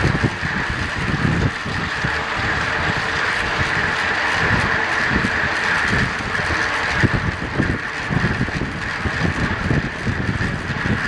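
Wind buffeting a bike-mounted camera's microphone on a track bike racing at about 29 mph: gusty low rumbling over a steady high hiss.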